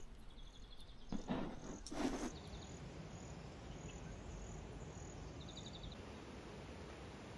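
Insects chirping faintly in bushland, short rapid trills repeating every few seconds over a quiet outdoor background. Two brief louder noises about one and two seconds in.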